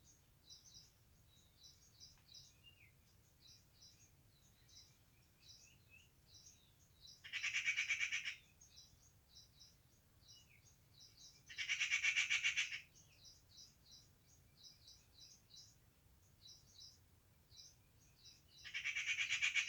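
Birds chirping, a steady run of short high notes, with three louder rapid trills a second or so long, spaced several seconds apart.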